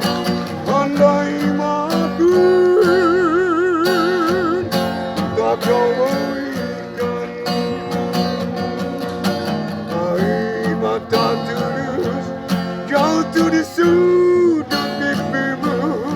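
Acoustic guitar strummed in a steady rhythm under a singer's voice, which holds long notes with wide vibrato, the longest a few seconds in and shorter ones in the middle and near the end.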